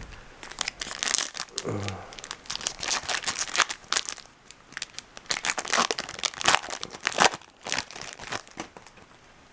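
Foil trading-card pack wrappers crinkling and tearing as packs are handled and opened, in many quick irregular crackles that ease off near the end. A brief low voice sound comes just before two seconds in.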